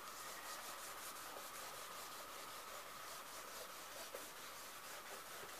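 Faint rubbing and handling of paper by hand, soft light scratching, over a faint steady high whine.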